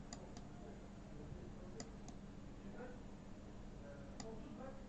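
Computer mouse clicking a few times, sharp and faint, over a low room hum, with faint distant voices of people talking outside the room.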